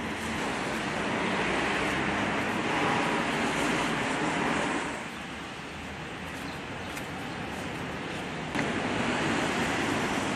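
Outdoor city street ambience: a steady wash of road traffic noise. It drops in level about halfway through and steps back up a few seconds later.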